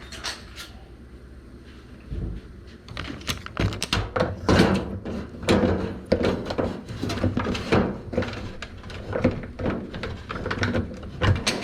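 Irregular clunks, knocks and rattles of a GE washing machine's suspension rod and drum being worked by hand as the rod is fitted into place, starting about two seconds in and coming thick and fast after that.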